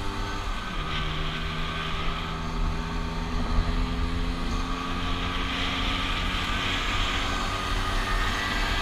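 Scooter engine running steadily at cruising speed, its note shifting about a second in, under heavy wind rumble on the scooter-mounted microphone, with other scooters riding close alongside.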